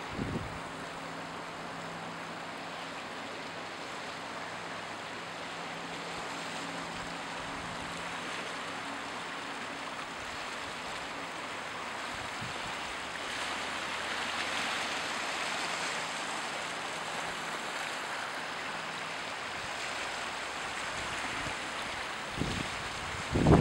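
Small waves washing on a pebble beach: a steady, soft wash of water that swells a little about halfway through. A faint low hum runs under it in the first half.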